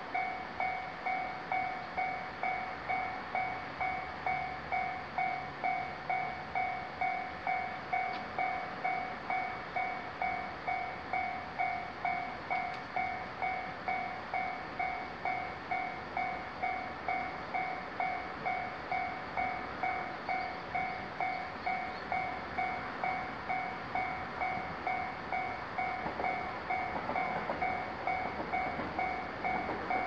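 Japanese railroad crossing's electronic warning bell ringing steadily, about two dings a second, while the red lights flash: the crossing is signalling an approaching train. Near the end a rushing noise grows beneath the bell.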